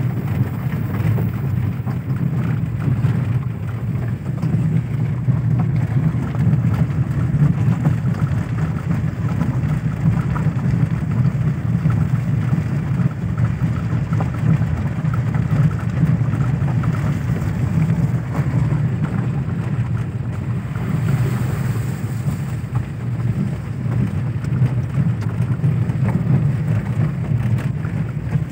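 Inside a car driving on a rough, potholed road: a steady low engine and road rumble under a constant hiss of the tyres.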